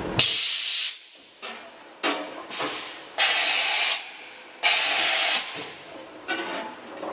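Hardinge VMC-1000-II's umbrella-type automatic tool changer cycling, with a run of sudden compressed-air hisses. Three are long, up to about three-quarters of a second, and several are short, as the pneumatic carousel swings to the spindle and back.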